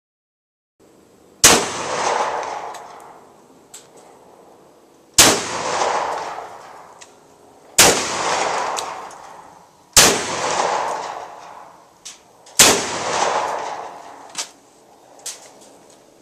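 Saiga 12 semi-automatic 12-gauge shotgun firing five single shots a few seconds apart at a steel plate target. Each loud report fades away over a second or more, with fainter clicks and knocks between the shots.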